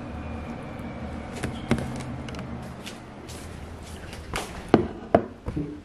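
A plastic spoon stirring cereal and milk in a glass mug, knocking against the glass several times; the loudest knocks come near the end, over a low steady hum.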